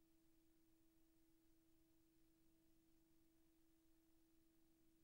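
Near silence: a gap in the soundtrack, with only a faint steady electrical hum.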